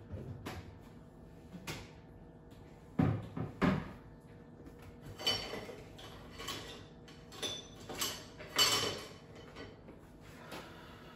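Kitchen cupboard doors and dishes being handled: a couple of knocks about three seconds in, then a run of clattering and clinks from about five to nine seconds.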